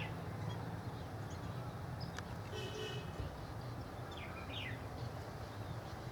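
Outdoor background of a steady low hum, like distant traffic, with a few short bird chirps, two of them close together about four and a half seconds in.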